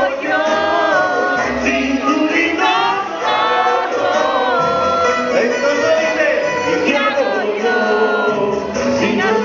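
Two male singers singing a vallenato song into microphones over amplified backing music, the sung melody held in long gliding notes over a pulsing bass.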